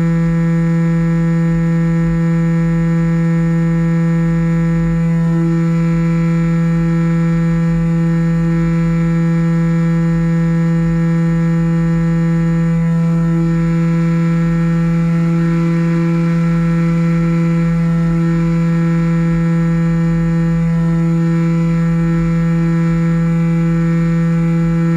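Model airplane's motor and propeller running at a steady throttle, giving a constant droning tone, with wind rumbling over the onboard camera's microphone.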